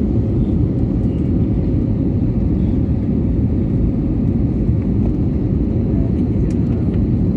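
Jet airliner cabin noise on approach to landing: the steady low roar of engines and airflow heard from inside the passenger cabin, with a faint steady hum above it.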